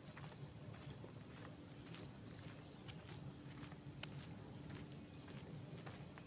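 Faint insect sound: a cricket chirping in a regular run of short, high chirps about three a second, over a steady high-pitched insect hum. A low rumble and a few soft clicks lie underneath.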